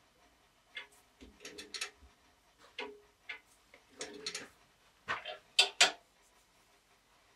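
Sharp metal clicks and knocks of a wood lathe being set up: the tool rest is positioned beside a square blank and the chuck turned by hand, with no motor running. Short clusters of knocks, the loudest two close together near the end.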